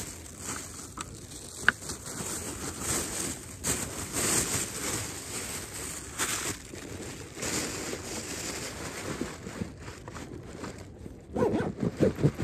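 Skis scraping and crunching over snow in uneven swishes, with a quick run of louder crunches near the end.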